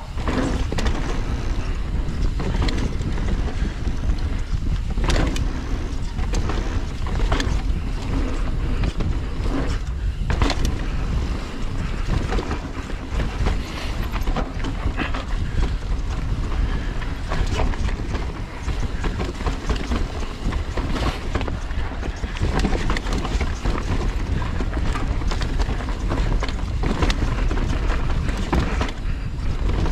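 Mountain bike riding down a rough trail: a steady rush of wind on the microphone and tyre rumble, broken by frequent irregular knocks and rattles from the bike over rough ground.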